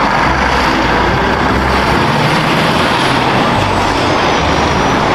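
Truck engine sound, loud and steady, accompanying a toy tanker truck.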